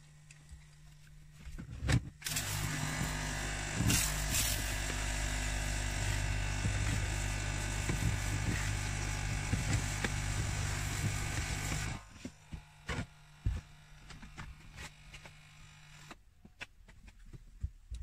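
A vacuum cleaner's motor starts about two seconds in and runs steadily with a whine and rushing air, then cuts off suddenly about twelve seconds in; a few knocks follow.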